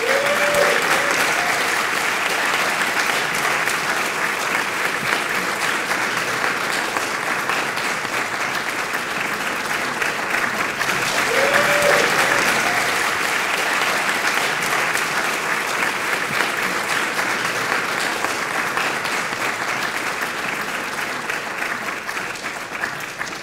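Audience applauding: dense, steady clapping that swells about halfway through and thins out near the end.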